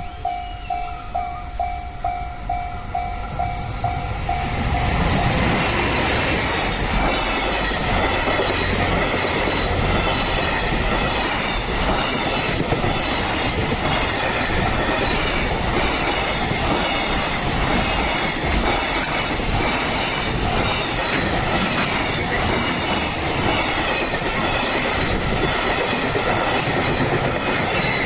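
Japanese level-crossing warning bell dinging about twice a second. About four seconds in, a freight train hauled by a JR Freight EF210 electric locomotive reaches the crossing and takes over: a continuous rumble with the steady clatter of wagon wheels over rail joints and a thin high whine from the wheels.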